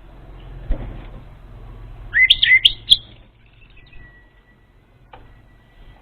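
Orange-headed thrush song used as a lure call: a short phrase of quick, loud whistled notes sliding up and down, about two seconds in, followed by a faint, thin steady whistle tone, over a low steady hum.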